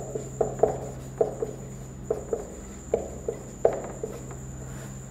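Felt-tip whiteboard marker squeaking across a whiteboard while words are written: about a dozen short squeaks, often in quick pairs, with a steady low hum underneath.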